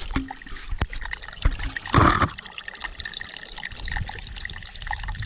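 Water trickling and pouring through a backpacking water filter into a container, with a few light knocks of handling and a short louder burst about two seconds in.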